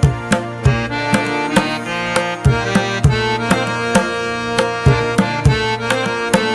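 Background music in a traditional Indian style: a sustained melody line over regular drum strokes, about three a second.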